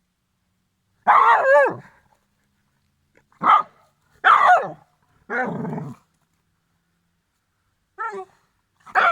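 Small Jack Russell–Maltese mix dog barking at a hedgehog in short, excited bursts, about five of them with silent gaps between, one lower and rougher about five seconds in.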